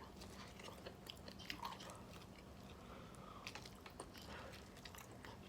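Faint chewing and biting of corn on the cob, with small irregular crunches.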